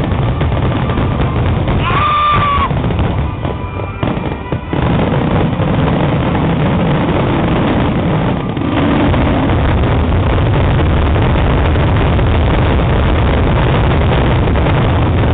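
Aerial fireworks shells bursting in a rapid, continuous barrage, one explosion running into the next, with a brief drop in level about four seconds in.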